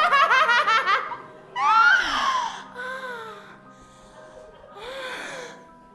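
Theatrical vocalising by a stage performer: a rapid, pulsing vocal run breaks off about a second in, then three long, drawn-out wails gliding down in pitch over held keyboard notes.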